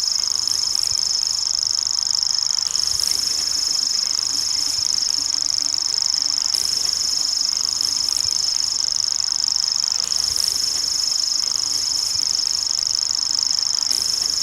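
Common grasshopper warbler (Feldschwirl) reeling: one steady, unbroken, high-pitched trill held throughout.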